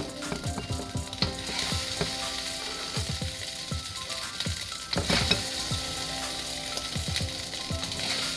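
Spatula scraping and scooping fried rice from the hot pan into a bowl, with repeated short scrapes and knocks over a steady hiss from the pan.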